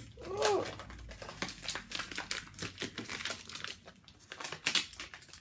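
Paper and plastic packaging crinkling and rustling as a hand gripper is unwrapped, in many quick irregular crackles. A brief vocal hum, rising then falling in pitch, about half a second in is the loudest sound.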